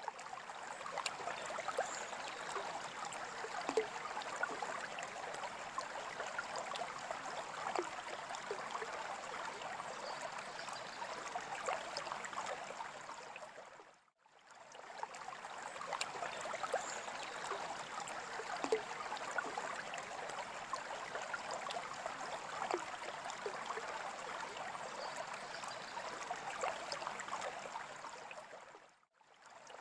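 Water trickling and bubbling in a freshwater aquarium: a steady splashing with many tiny droplet pops. It fades out briefly and back in about halfway through and again near the end.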